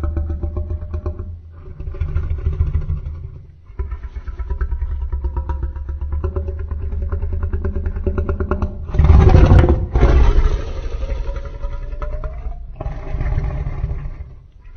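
Custom-made creature sound effect for the Chimerasaurus Rex, a fictional hybrid dinosaur. It is a string of deep, pulsing growls broken by short pauses, with the loudest roar about nine seconds in.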